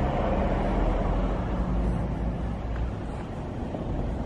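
Perkins 404D-22T 2.2-litre four-cylinder turbocharged diesel running at a steady speed inside the closed sound-proofed canopy of a Geminiani silent power pack.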